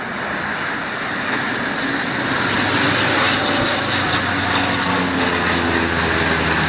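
Engines of a Canadair CL-415 water-bombing plane, growing louder as it approaches, over a steady rush of wind on the microphone.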